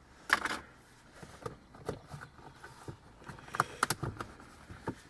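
Plastic cards and a phone wallet being handled: a scatter of light clicks, taps and rustles as cards are slid into the wallet's slots, with a sharper tap just after the start and a quick run of clicks a little before the end.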